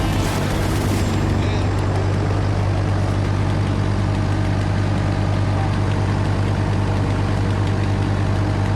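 Timberjack log skidder's diesel engine idling steadily.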